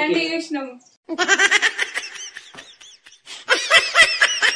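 High-pitched laughter in two stretches, with a line of speech just before it at the start.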